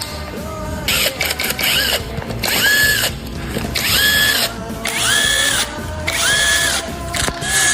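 Handheld power tool, such as a cordless drill-driver or wrench, running in short bursts about once a second, each one winding up, holding and winding down, as fasteners are run out during an engine teardown.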